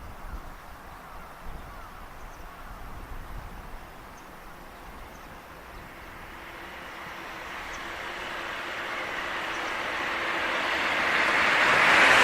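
A vehicle approaching: quiet low rumble at first, then its noise swells steadily over the second half and peaks right at the end.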